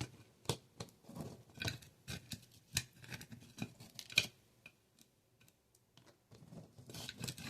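Irregular light clicks and taps of small hard objects knocking together, several a second, pausing briefly about five seconds in.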